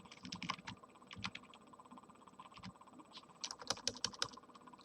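Keystrokes on a computer keyboard: scattered clicks, with a quicker run of taps about three and a half to four seconds in, as dimension values are typed in.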